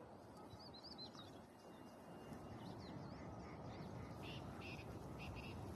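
Small birds chirping faintly, a few short high calls about a second in, again near the middle and in a quick cluster near the end, over a steady low background rush.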